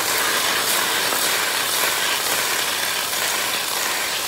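Thin slices of raw potato sizzling in hot olive oil in a frying pan: a steady, even hiss.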